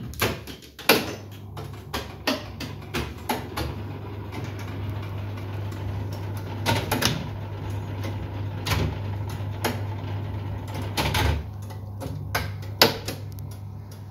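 Electromechanical Rotomat slot machine running once it is switched on: a steady mains hum with sharp relay clicks and clacks, a quick run of them in the first few seconds, then scattered ones every second or two.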